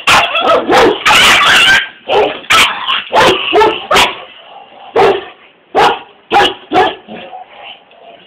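Dogs barking and yipping in rough play between a pug and a Saint Bernard. A rapid, nearly unbroken run of barks in the first two seconds gives way to single sharp barks every half second to a second, which turn softer after about seven seconds.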